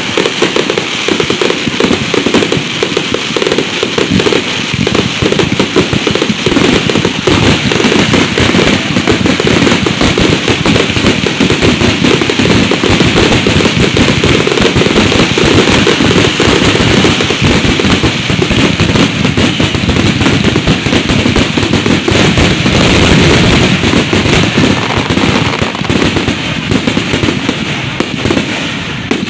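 Loud Fourth of July aerial fireworks display at close range, a dense continuous barrage of bangs and crackles that eases off slightly near the end.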